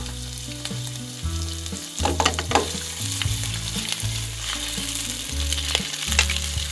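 Diced shrimp sizzling as they fry in oil in a nonstick frying pan, with clicks and scrapes as they are stirred and the pan is moved, busiest about two seconds in and again near the end.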